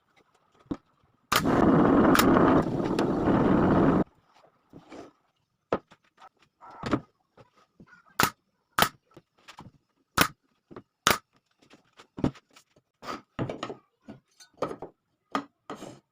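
Woodworking bench sounds: a power tool runs for about three seconds, starting and stopping abruptly, then a string of sharp knocks and taps on wood at an uneven pace.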